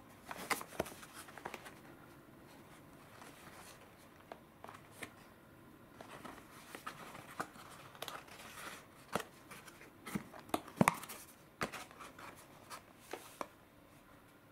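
A paperboard burger box and paper packaging handled and opened by hand: scattered taps, scrapes and crinkles of card and paper, with the sharpest clicks about ten to eleven seconds in as the box is opened.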